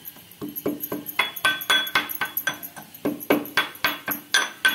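Metal pestle pounding garlic, red chilli powder and salt into a paste in a small steel mortar: quick strikes about four a second, each with a ringing metallic clink, with a short pause about halfway through.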